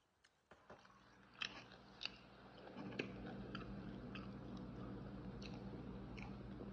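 Close-up chewing of fried chicken gizzards, with sharp crunching clicks as they are bitten. About three seconds in, a steady low hum comes in underneath.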